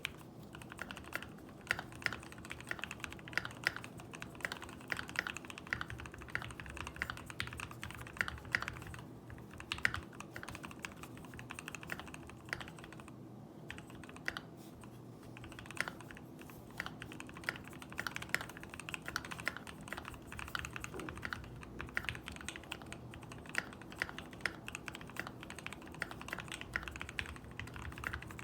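Continuous typing on a Keychron Q2 mechanical keyboard with lubed and filmed Gateron Ink Black v2 linear switches and PBT XDA keycaps. The key presses come rapidly and give a deep 'thocc' sound, with a few short pauses.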